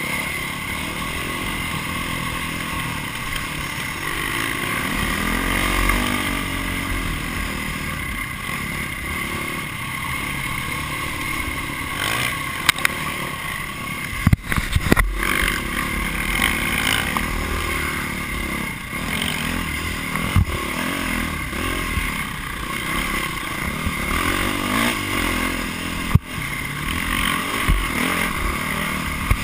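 Dirt bike engine running hard under the rider, its pitch rising and falling as it revs and shifts. A few sharp knocks come through, around the middle and again later.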